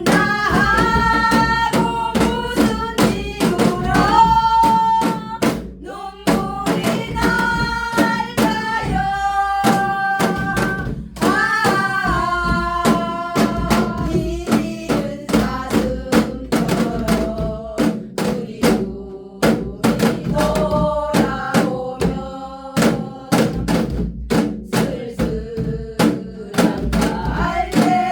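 Janggu, the Korean hourglass drum, struck in a steady rhythm of sharp strokes along with a slow song carried by a wavering sung melody.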